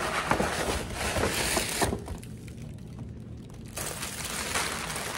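Paper rustling and crinkling as tissue paper wrapping is pulled and unfolded off an item, easing off for a moment about two seconds in before starting again.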